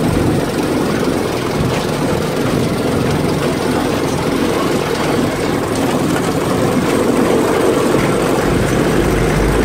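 Off-road buggy's engine running steadily as the buggy drives along a bumpy dirt track, heard from aboard the buggy, with a dense low rumble and no letup.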